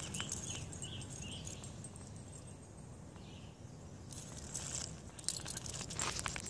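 Quiet outdoor background with a few faint high chirps in the first second and a half, then light clicks and scrapes from a dog's leash being dragged across asphalt near the end.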